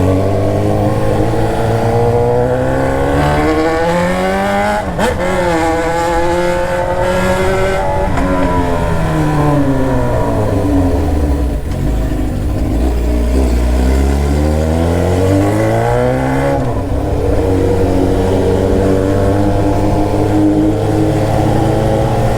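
Inline-four sport motorcycle engine running under way. The revs climb over the first few seconds, fall away slowly through the middle, climb again, then hold steady near the end.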